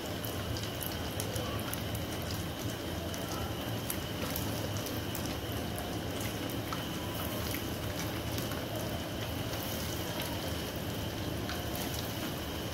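Breaded potato-and-chicken cutlets sizzling steadily as they shallow-fry in hot oil in a frying pan, with many small spitting crackles.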